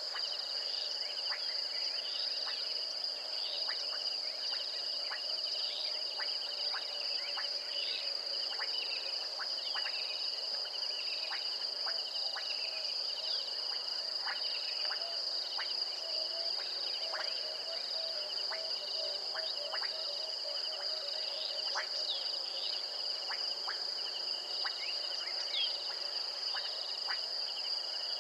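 Night chorus of crickets and other insects: a steady high-pitched trilling at two pitches, with many short chirps scattered through it.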